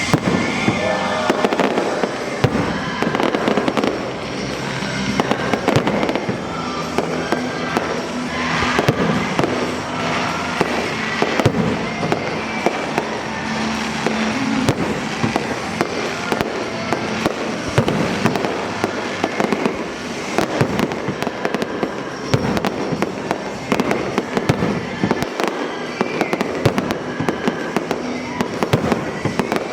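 A fireworks display: shells bursting one after another in a dense, irregular barrage, with music playing underneath.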